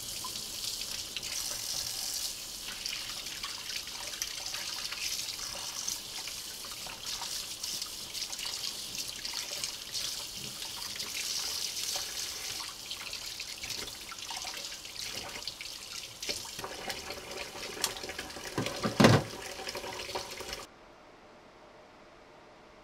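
Kitchen tap running onto raw chicken pieces in a stainless steel sink, water splashing as they are rinsed. One loud knock about nineteen seconds in, and the running water cuts off suddenly near the end.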